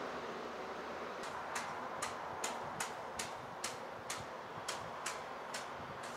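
Sharp regular ticking that starts about a second in, about two and a half ticks a second, over a steady background hiss.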